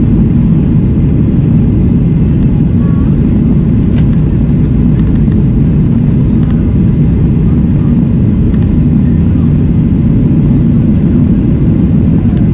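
Boeing 737-800's CFM56-7B jet engines and rushing air, heard inside the cabin as a loud, steady low rumble during takeoff and climb.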